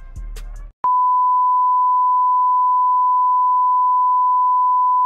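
Background music cuts off under a second in. It is followed by a loud, steady, single-pitch test tone, the 'bars and tone' signal that goes with TV colour bars.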